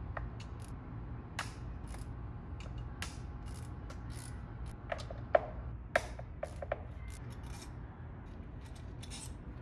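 Hand tool working the E8 Torx bolts on a B58 engine's fuel rail: scattered small metallic clicks and ticks, with a few sharper clinks about halfway through.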